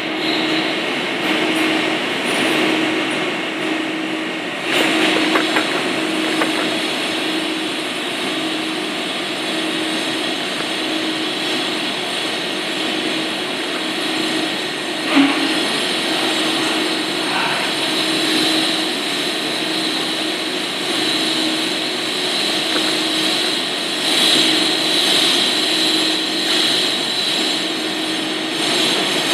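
Steady mechanical rushing hum with a low tone that pulses evenly, and one light knock about halfway through.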